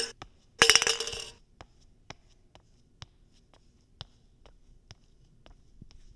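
Hard small objects clinking, like glass: one sharp clink, then about a second of rapid clattering clinks, then scattered light clicks every half second or so.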